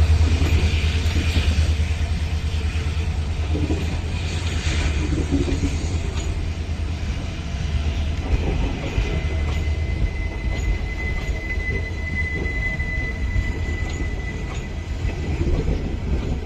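ICF passenger coaches rolling past with a steady low rumble and wheel-on-rail clatter, easing slightly. A thin steady high wheel squeal holds for several seconds in the middle.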